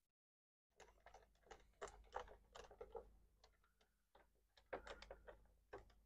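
Faint, irregular small clicks and taps as a plastic project-box enclosure is fitted together and its lid screwed down with a screwdriver.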